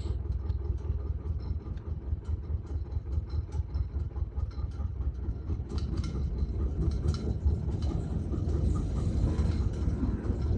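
Small narrow-gauge locomotive moving slowly along the track toward the listener: a steady low engine rumble with frequent clanks and clicks from the wheels and rails, growing louder near the end.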